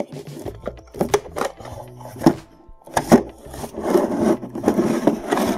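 Hard plastic VCR cassette case being handled and opened: a series of sharp clicks and knocks, then rubbing and scraping of plastic on plastic and cardboard.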